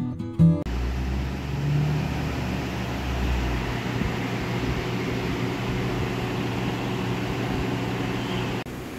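Guitar music cuts off about half a second in. After it comes a steady rushing noise with a low hum underneath, heavier in the bass for the first few seconds, which drops a little in level near the end.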